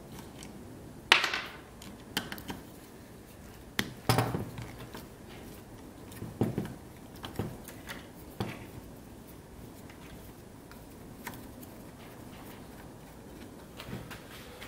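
A flathead screwdriver clicking and scraping on a tight screw in a hedge trimmer's electric motor, with scattered light knocks of metal and plastic parts being handled. The sharpest click comes about a second in.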